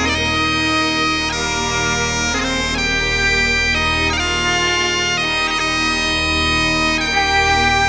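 Bagpipe music: a melody of held notes changing every half second or so over steady drones.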